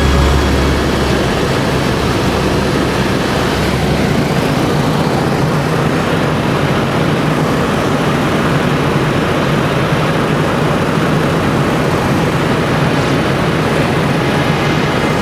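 Steady drone of a light propeller airplane's engine and propeller in flight.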